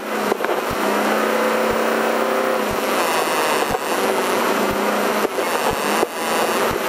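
Off-road race truck's engine and drivetrain running hard, heard from inside the caged cab, with sharp knocks about once a second.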